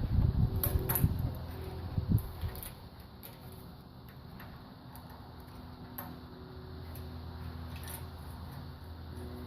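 Metal parts being handled while a timing chain is fitted onto camshaft sprockets. There are low bumps and a few sharp metallic clicks in the first couple of seconds, then only an occasional light tick over a faint steady hum.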